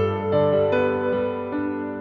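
Background music: a slow, gentle piano melody with a new note about every half second, each left to ring.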